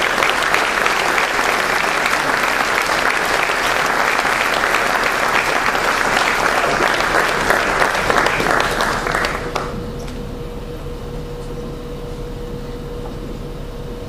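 Audience applauding in a large hall. The applause cuts off suddenly about nine and a half seconds in, leaving a quieter steady hum with a faint thin tone.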